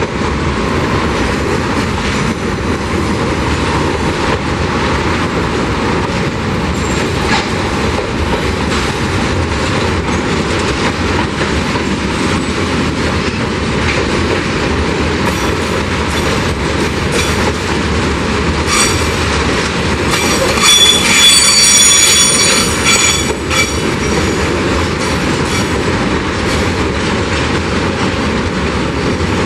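Freight train of tank wagons rolling past: a steady running noise of steel wheels on rail with scattered clicks. About two-thirds of the way through, a high, multi-toned wheel squeal rises for several seconds as the wagons take the curve, and this is the loudest part.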